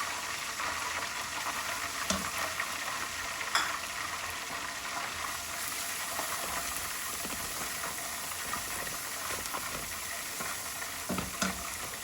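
Garlic sizzling steadily in hot oil as it is stir-fried, with a few sharp scrapes or clicks of the utensil against the pan.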